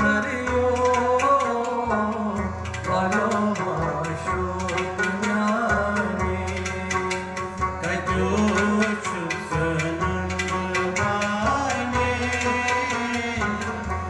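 Kashmiri folk song played live by a small ensemble: a man singing over harmonium, a plucked lute and hand percussion with quick, steady strokes.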